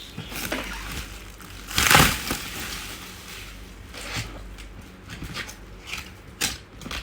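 Packaging being handled while unboxing a sewing machine: rustling and crinkling with scattered knocks and clicks, the loudest rustle about two seconds in.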